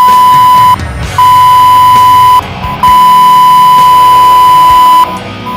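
Fire dispatch radio alert tone: one steady, loud high beep sounding three times, the first two about a second long and the last about two seconds.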